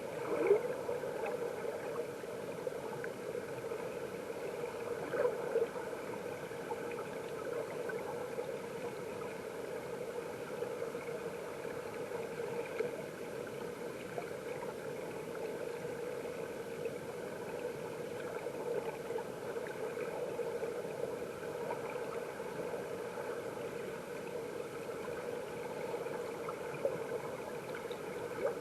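Stream water heard from under the surface by a submerged camera: a steady, muffled rushing and bubbling with a few louder bubbling pops about half a second in and around five seconds in.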